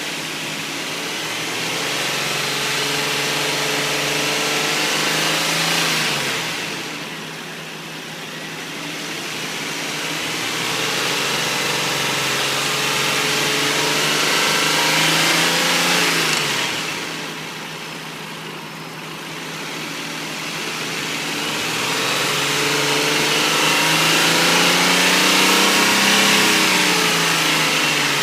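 2004 Infiniti I35's 3.5-litre V6 engine revved three times, each time climbing slowly, holding high and dropping back toward idle. This is the engine the owner says is knocking.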